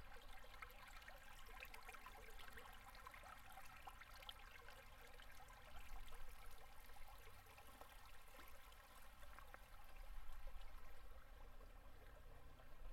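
Faint shallow river water trickling and gurgling at low winter flow around and under ice, a steady patter of small splashes that swells slightly about six and ten seconds in.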